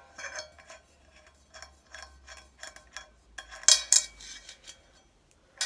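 Pearl 14-inch hi-hat cymbals being taken off their stand: a string of metallic clinks and knocks with short ringing tails, and a louder clash of the cymbals about four seconds in.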